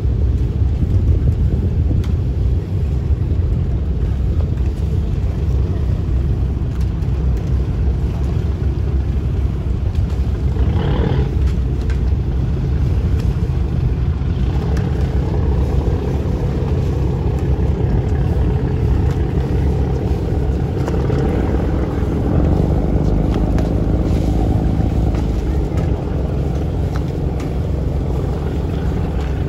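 Steady low rumble of a ferry's engines, with a brief higher-pitched sound about eleven seconds in.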